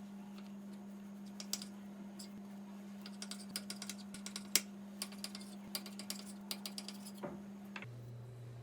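Light, irregular clicks and taps, starting about a second and a half in, over a steady low hum that drops in pitch near the end.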